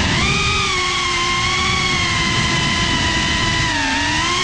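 Whine of a GePRC CineLog 35 FPV drone's brushless motors and propellers, heard through the onboard GoPro. The pitch dips and climbs back right at the start and again near the end as the throttle is eased and pushed back up.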